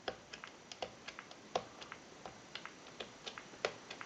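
Keypad buttons on an animated Mickey Mouse novelty telephone clicking faintly as digits are dialed one after another, a few presses a second at uneven spacing.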